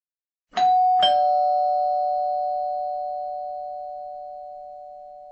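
Two-note ding-dong doorbell chime: a higher note, then a lower one about half a second later, both ringing on and slowly fading.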